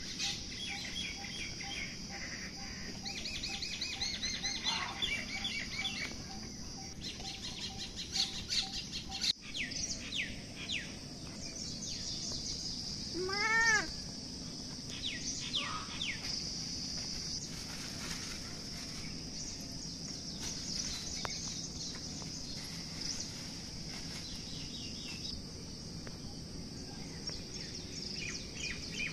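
Assorted birds chirping and calling over a steady high-pitched hiss, with one louder, short run of quick rising-and-falling notes about halfway through.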